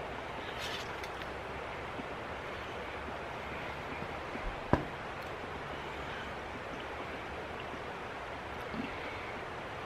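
Steady outdoor background noise, an even rushing hiss, with one sharp click a little under halfway through.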